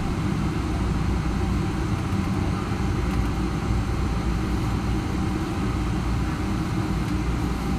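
Boeing 777-300 cabin noise while taxiing: the engines running at low taxi power, heard from inside the cabin as a steady low rumble.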